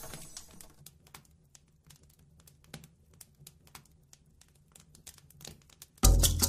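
Faint, irregular crackling and clicking. About six seconds in, a sudden loud low thump starts percussive music.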